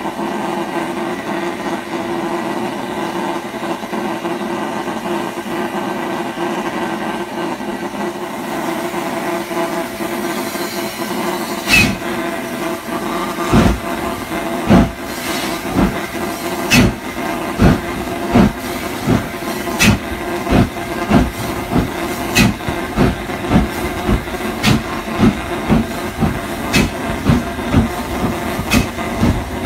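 SR S15 class two-cylinder 4-6-0 steam locomotive No. 847 pulling a train away from a stand, heard from the first carriage: a steady hiss at first, then exhaust beats start about twelve seconds in, slow at first and quickening to about two a second.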